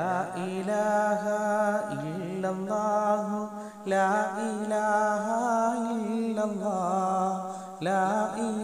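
A single voice singing a slow devotional chant, its long notes wavering and ornamented, with fresh phrases starting about two, four and eight seconds in.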